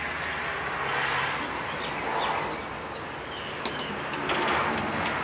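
Wind rushing on the microphone, with birds chirping faintly and a few sharp clicks and rattles in the second half.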